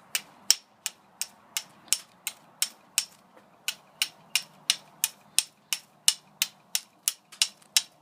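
Hardened O1 tool-steel striker repeatedly struck against a piece of flint: sharp, even clicks about three a second.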